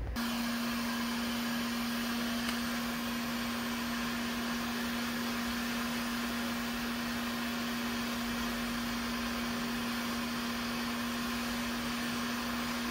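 Electric heat gun running steadily, blowing hot air onto a crankshaft ball bearing: a rush of air with a steady hum from its fan motor.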